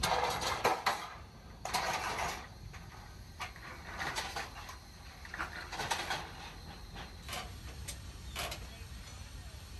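Metal clanking and rattling from a car-hauler trailer's steel ramps and decks as a pickup is driven up onto it and the rack is worked with a steel bar. A string of sharp knocks, thickest in the first two and a half seconds, then sparser.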